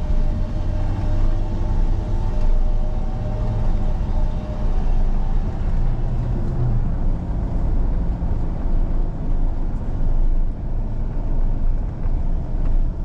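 1999–2006 Chevy 1500 pickup driving: steady engine and tyre rumble from inside the cab, with a faint engine tone in the first few seconds.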